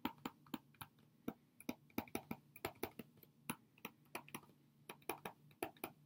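Stylus tapping and clicking on a tablet screen during handwriting: a fast, irregular run of faint, sharp clicks, several a second.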